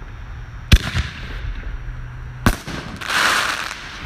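Consumer canister shell fired from a mortar tube: a sharp bang from the lift charge, then a second bang about a second and three quarters later as the shell bursts, followed by about a second of hissing crackle. The first bang is the loudest.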